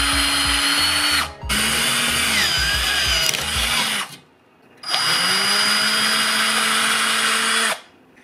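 Hand-held power drill with a large twist bit boring through a knife-handle liner clamped in a bench vise. The motor runs at a steady pitch in three runs of a few seconds each, stopping briefly about a second in and for under a second near the middle.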